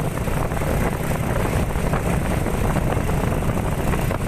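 Steady low rumble of wind buffeting the microphone, with no clear other sound standing out.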